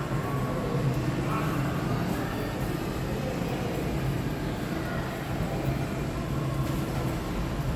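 Steady low background rumble of a shopping-mall walkway, with no distinct event standing out.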